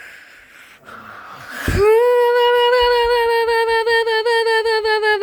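A person's voice holding one long, high, wavering note that starts just under two seconds in and sags slightly in pitch, after a short breathy hiss.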